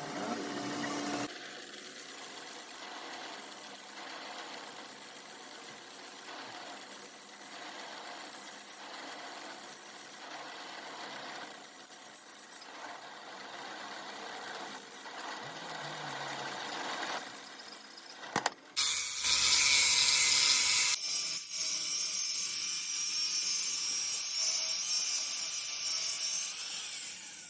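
Metalworking machinery: a high-pitched squeal comes in about nine short bursts, each under a second. About two-thirds of the way in, a loud, steady hiss takes over.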